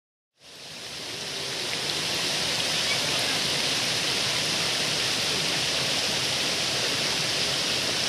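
Waterfall pouring: a steady rushing hiss of falling water that fades in over the first couple of seconds and then holds level.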